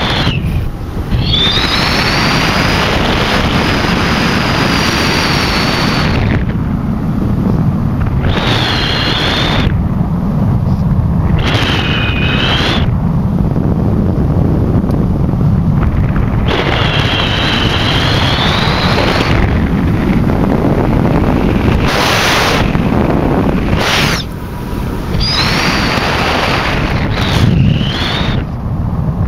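Wind rushing over the microphone of a Quicksilver MX ultralight gliding down with its engine out, with a high whistle that comes and goes several times, rising and falling in pitch. There is a louder bump near the end as it reaches the ground.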